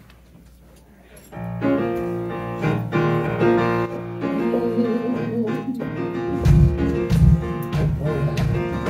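Live rock band starting a song: grand piano chords come in about a second in, and the bass and drum kit join with a heavy beat at about six and a half seconds.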